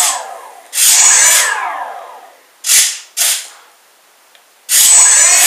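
Electric motor of a twin-engine RC model plane spinning its propeller up in repeated bursts and winding down with a falling whine each time. There is a long burst about a second in, two quick blips around the middle, and another burst near the end. One motor runs up on its own as the differential-thrust mix is tested.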